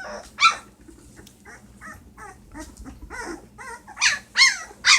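Litter of puppies about ten days old whining and squealing: a quick run of short, high cries that bend in pitch, louder about four seconds in.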